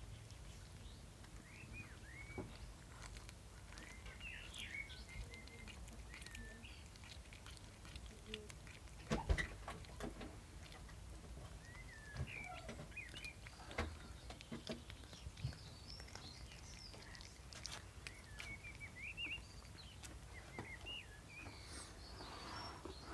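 Small bird chirping in short, quick calls scattered throughout, with soft clicks and taps and a louder knock about nine seconds in.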